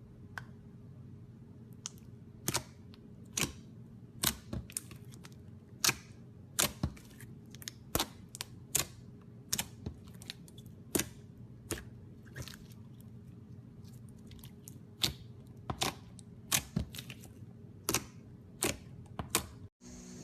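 Slime being pressed and squeezed by hand, making irregular sharp pops and clicks as trapped air bursts, about one or two a second, over a faint steady hum.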